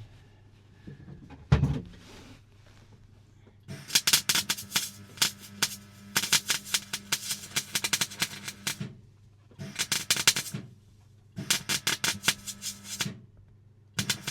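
MIG welder laying a weld in short runs: four bursts of rapid crackling, one to five seconds each with pauses between, and a steady hum under the crackle. A single thump comes about a second and a half in, before the welding starts.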